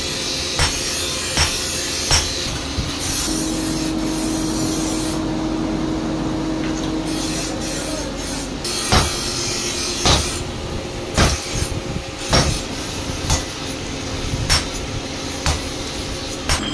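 Hand hammer striking a red-hot bolo blade on a steel anvil, about one blow every 0.7 seconds at first. A pause of several seconds follows with a steady hum while the blade reheats in the coal forge. The hammering then resumes at about one blow a second.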